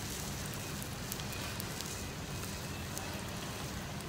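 Areolata sea snails grilling on a wire rack over a charcoal fire: a steady hiss with scattered small crackles and pops, over a steady low rumble.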